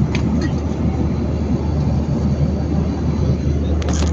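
Airliner cabin noise: a steady, loud drone of jet engines and airflow heard from inside the plane, with a few short clicks near the end.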